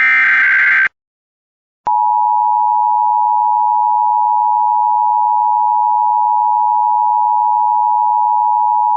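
Emergency Alert System signalling: a short burst of SAME digital header data chirps, then after a second's gap the steady two-tone EAS attention signal (853 and 960 Hz together) sounds from about two seconds in. Together they open an EAS message, here the North Carolina required monthly test.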